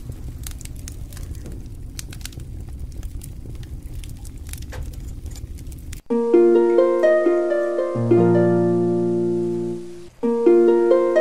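Mutton rogan josh sizzling and bubbling in a frying pan: a steady hiss with scattered crackles. About six seconds in it cuts to louder background music of plucked-string arpeggios.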